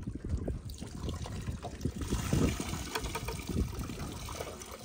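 Water pouring from a tipped plastic bucket over the side of a boat into the lake, a splashing trickle that grows fuller about two seconds in.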